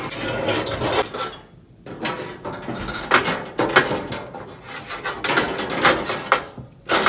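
Coleman two-burner propane stove being unlatched and opened: the sheet-metal lid and side wind panels are swung open and the grate handled, giving a string of clanks, scrapes and rattles.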